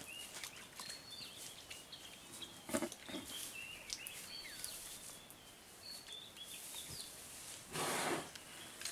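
Small birds chirping in the background, short high calls scattered throughout, with a couple of brief rustling noises about three seconds in and a louder half-second noisy burst about eight seconds in.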